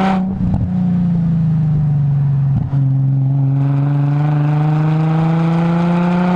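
Nissan 350Z's 3.5-litre V6 through a handcrafted Y-back exhaust, pulling hard: the revs drop with a gear change at the start, dip again briefly a little before the middle, then climb steadily to the end.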